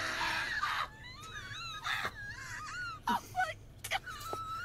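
A person laughing hysterically in high, wheezing squeals that waver up and down in pitch, broken by short breathy gasps.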